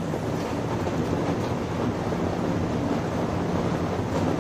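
Steady rain with a low rumble underneath, an even rushing noise that does not let up.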